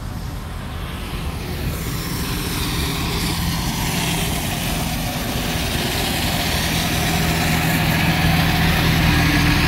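Steady low engine hum under a rushing noise that slowly grows louder.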